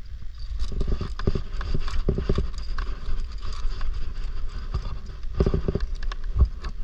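Irregular knocking and clattering in uneven clusters of several knocks, over a steady low rumble.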